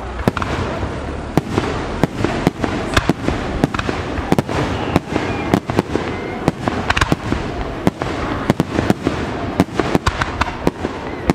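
Fireworks display: aerial shells launching and bursting in a fast, irregular series of sharp bangs, about three a second.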